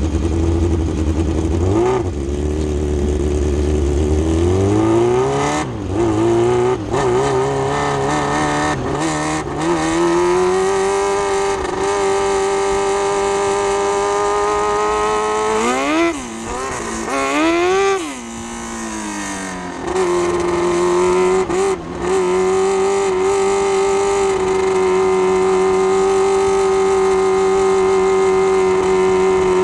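600cc micro sprint car's motorcycle engine, heard onboard during warm-up laps. It runs at low revs for the first few seconds, then revs climb as the car pulls onto the dirt track. Around the middle the driver lifts off the throttle and gets back on it twice, and the engine holds steady high revs for the last ten seconds.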